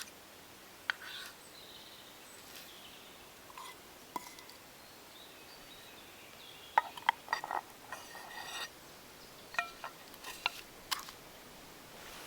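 Scattered light clinks and taps of cooking gear being handled, with a busier cluster a little past the middle, over quiet outdoor background.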